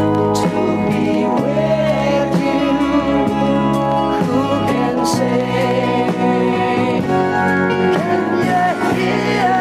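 Slow rock ballad played from a vinyl record on a turntable: a man singing over sustained band chords at a steady level.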